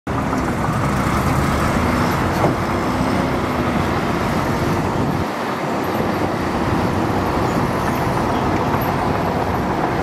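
Heavy diesel engines of a crawler bulldozer pushing dirt and a dump truck tipping its load, running steadily under load with a faint clank of metal.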